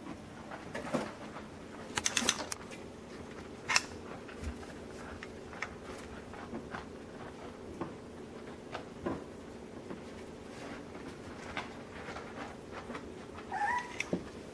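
Miniature American Shepherd puppies playing on plastic equipment: scattered light taps, clicks and scrabbles of paws and claws, over a steady low hum. A puppy gives one short whine near the end.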